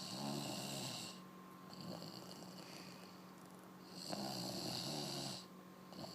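Snoring in a slow rhythm: two loud snores about four seconds apart, one at the start and one about four seconds in, each lasting about a second and a half, with a softer breath sound between them.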